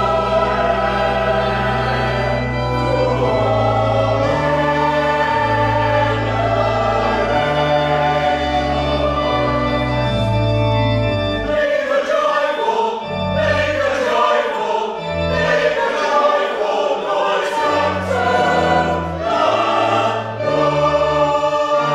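Choir singing with pipe organ accompaniment, sustained chords over deep held bass notes that drop away about halfway through, leaving lighter, moving upper parts.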